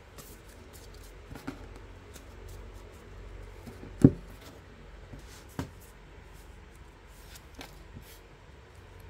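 UNO playing cards being handled: scattered light clicks and card slides, with a single heavy knock about four seconds in as a stack of cards is set down on the tabletop, and a smaller knock about a second and a half later.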